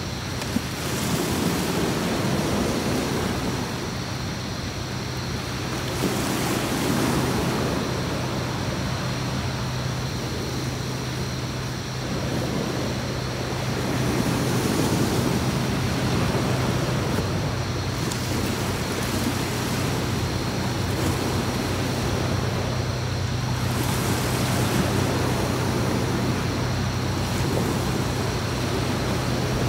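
Sea waves washing onto a beach, the surf swelling and falling back every few seconds, over a steady low hum.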